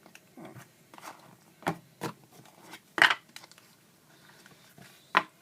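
Standard-size Zippo lighter's hinged metal lid flicked open and snapped shut, giving a few sharp metallic clicks; the loudest comes about three seconds in.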